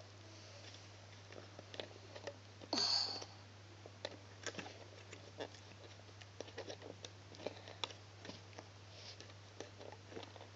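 Faint, scattered clicks and small taps of hands working rubber loom bands onto the plastic pegs of a Fun Loom, with one brief louder rustle about three seconds in. A steady low hum runs underneath.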